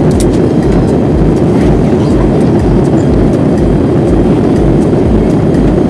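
Steady cabin noise inside a Boeing 787-8 airliner in flight: a loud, even rumble of engine and airflow heard from a window seat.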